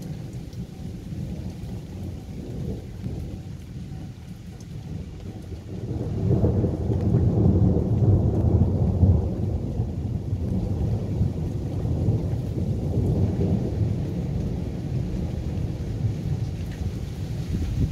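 Rolling thunder: a low rumble that swells sharply about six seconds in, stays loudest for a few seconds, then slowly dies away.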